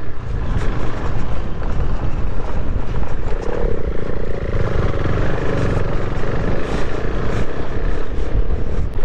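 KTM 390 single-cylinder engine running at low speed on a rough gravel track, mixed with steady wind rush and scattered small knocks.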